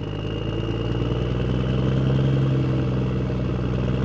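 A vehicle engine idling steadily, getting a little louder about a second and a half in.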